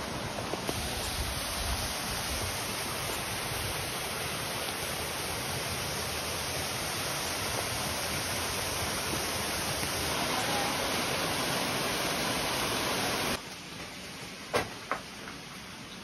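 Steady rush of a mountain stream and waterfall, which cuts off suddenly about thirteen seconds in. It gives way to the much quieter inside of a cave, where a few sharp clicks are heard.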